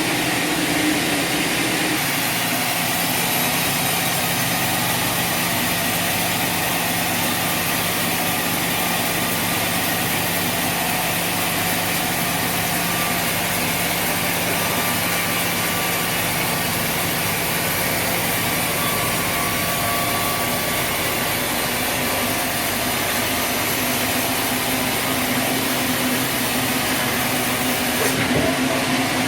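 A machine running steadily: a constant low hum under an even, loud mechanical noise.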